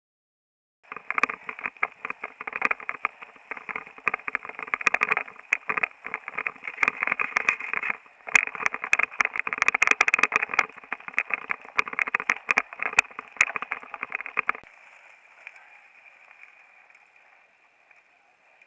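Rattling and wind noise from a moving camera, thick with clicks and knocks. It cuts off suddenly about fourteen seconds in, leaving a faint steady hiss.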